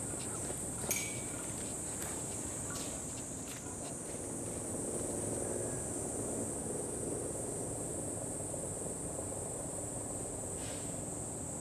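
Insects, likely cicadas, droning steadily in one high band, with a faint click about a second in.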